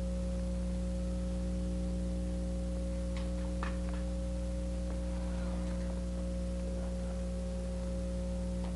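Steady low electrical hum of an old recording, with a faint hiss and a few faint taps about three seconds in.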